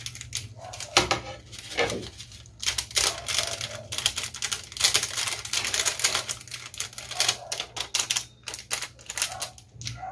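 Foil seasoning sachet crinkling and crackling as it is shaken and pinched empty, a dense run of sharp crackles that thins out near the end.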